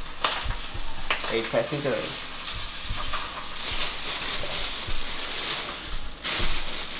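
Food sizzling in a frying pan on a stovetop, a steady hiss, with a few sharp knocks near the start and about six seconds in.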